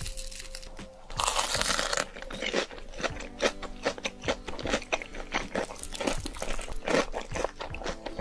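Close-miked eating sounds: a loud noisy burst lasting about a second, starting about a second in, then a quick run of crisp crunching bites and chewing, over quiet background music.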